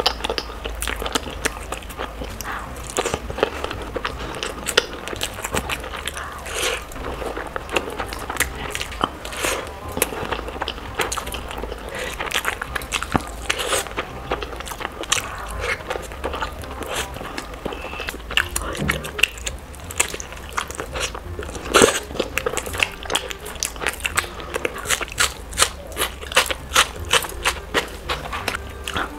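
Close-miked eating sounds: chewing and wet mouth smacks of someone eating a boiled egg, rice and mutton curry with her hand, in quick short clicks that come thicker near the end.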